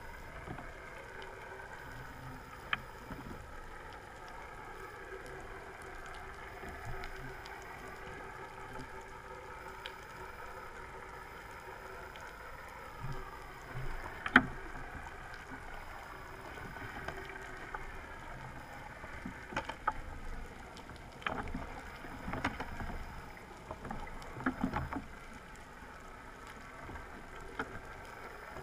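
Underwater sound picked up by a camera over the seabed: a steady drone whose pitch slowly wavers up and down, with scattered sharp clicks and knocks, the loudest about halfway through.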